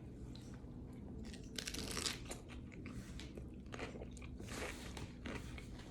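Close-miked mouth sounds of a person biting and chewing a shrimp dipped in cocktail sauce: soft, irregular wet crunches and small clicks.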